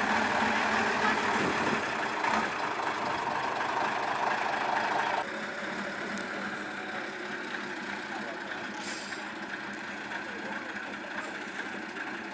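Big diesel engine of a 6x6 trial truck running, dropping noticeably quieter about five seconds in and then running steadily, with a brief hiss a few seconds later.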